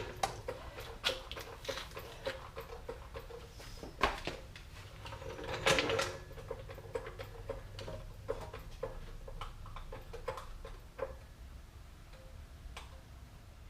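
Scattered, irregular clicks and clinks of hand tools working on a truck's front suspension bolts, with a louder knock about four seconds in and a short cluster of knocks a couple of seconds later, over a faint low steady hum.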